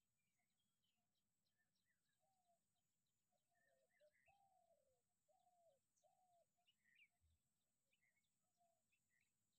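Near silence with faint birds calling in the background: scattered short high chirps, and a run of four or five arched, down-curving notes in the middle.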